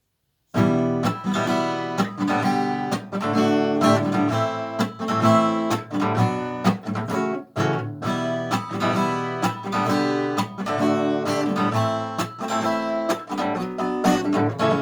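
Acoustic guitar strummed in a steady rhythm, starting about half a second in.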